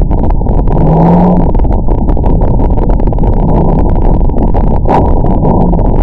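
Helicopter in flight: loud, steady rotor and engine noise, with a brief low hum about a second in.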